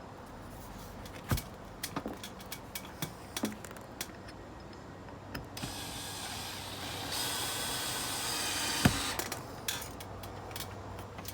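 Scattered knocks and clicks of a wooden window unit being handled and seated in its frame, then a power drill-driver runs for about three seconds driving a screw, louder partway through, and stops with a sharp knock.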